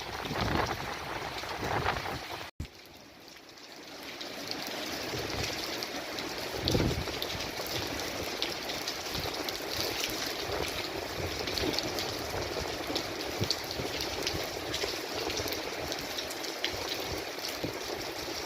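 Wind gusting against the microphone with a low rumble, cut off suddenly about two and a half seconds in. Then steady storm rain falls with a constant hiss and scattered pattering drops, and one more low gust about seven seconds in.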